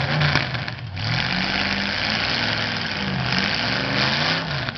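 Demolition derby car engines revving hard under load as two cars push against each other, the engine pitch rising and falling a few times.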